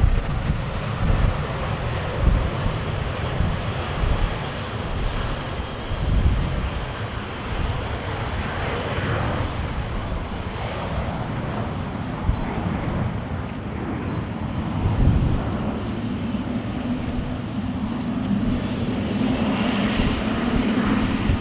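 Boeing 777 jet engines running as the airliner taxis close by: a steady rushing jet noise over a low rumble, with a low hum that comes in and grows about three-quarters of the way through.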